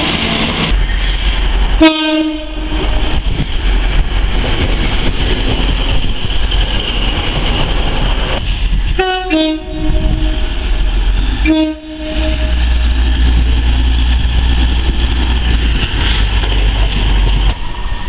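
Passenger train horns: three short blasts, about two seconds in, near the middle and a couple of seconds later, the middle one stepping down in pitch. Between them is the steady rush and rumble of trains running past.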